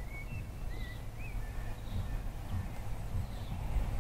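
Low, steady rumble of a class 43 HST diesel power car running past at a distance, growing louder toward the end. A bird chirps a few short wavy calls over it in the first two seconds.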